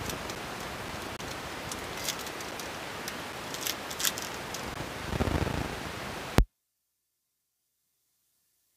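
Steady background hiss with a few brief crinkles and clicks of trading-card packaging being handled. About six seconds in, a click, and the sound cuts to dead silence, an audio dropout in the stream.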